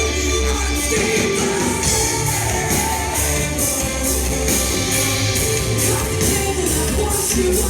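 Heavy rock band playing live at full volume: distorted guitars, bass and drums with steady cymbal hits, and singing in the mix.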